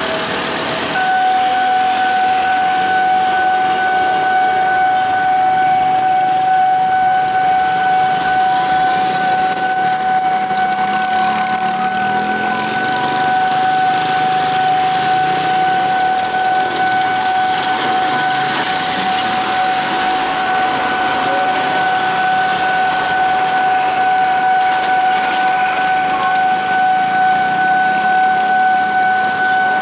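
A railway level-crossing warning alarm sounds one steady, unbroken tone, starting about a second in. Underneath it, a KAI diesel locomotive's engine runs as the locomotive approaches.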